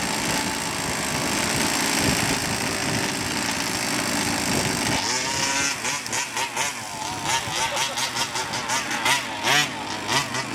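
Small two-stroke petrol engine of an HPI Baja RC buggy running steadily, then revved up and down repeatedly from about halfway through.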